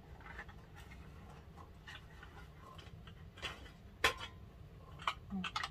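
A few sharp metallic clicks and clinks as the lid and handle of a T-fal stainless steel pressure cooker are handled, the loudest about four seconds in with a brief ring, and several quick ones near the end.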